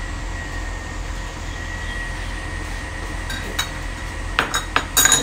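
Steady background hum with a faint steady tone. A few sharp clinks come about three and a half seconds in, then a quick cluster of louder clinks near the end.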